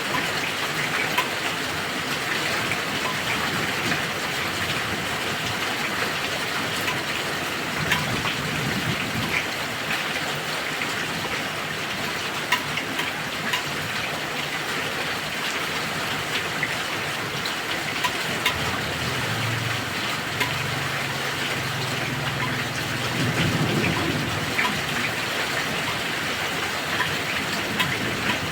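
Heavy rain falling steadily, a dense hiss with the patter of individual drops. About two-thirds of the way through, a low rumble of thunder rolls for several seconds.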